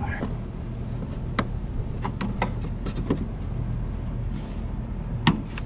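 Several sharp plastic clicks and knocks as the engine cover and rubber air intake hose are fitted back in a Mercedes Sprinter's engine bay, the loudest a bit after five seconds in. A steady low rumble runs underneath.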